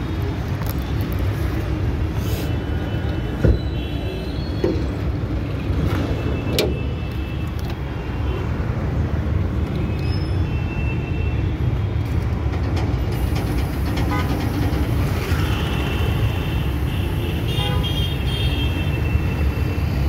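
Steady low rumble of road traffic with heavy trucks running close by, and a few short horn toots in the second half.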